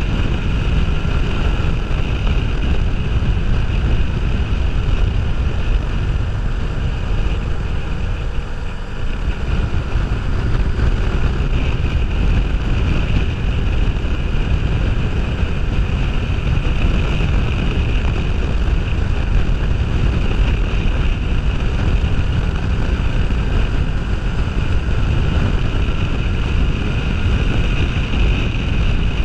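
Motorcycle riding at road speed: loud, steady wind buffeting on a helmet-mounted action camera over the running Kawasaki Ninja 500R's parallel-twin engine, easing briefly about eight seconds in.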